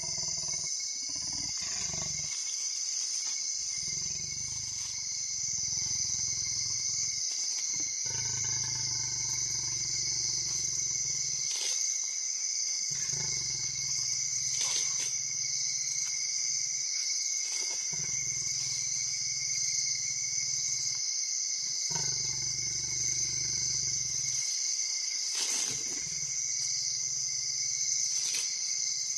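Leopard growling low in stretches of a few seconds, broken by short gaps, over a steady high-pitched chorus of night insects.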